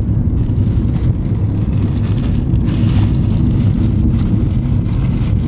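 Steady low rumble of road and engine noise heard from inside a moving car, with a brief swell of hiss nearly three seconds in.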